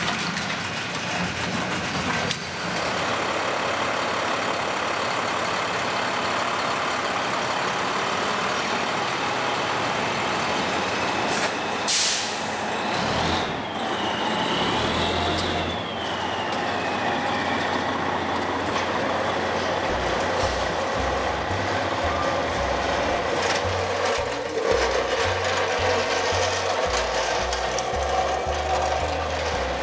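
Fire engine's diesel engine running, with a sharp air-brake hiss about twelve seconds in, followed by a falling whine and a steady low engine hum.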